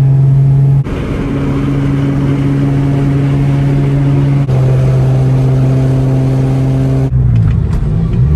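Nissan Z's engine droning steadily at cruising speed, in short clips spliced together: its pitch holds level within each and shifts slightly at sudden cuts about one, four and a half and seven seconds in, and is less steady after the last cut.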